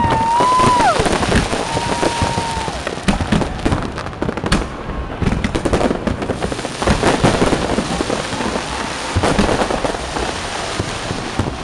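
Fireworks display going off: dense, irregular crackling and popping from bursting shells and crackle stars. Two whistles sound in the first three seconds.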